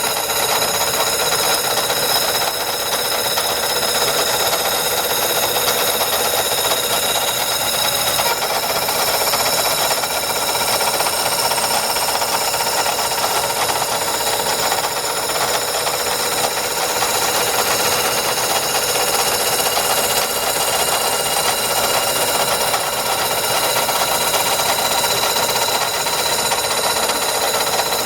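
A machine running steadily, an even mechanical whine made of many fixed high-pitched tones that holds at one level throughout.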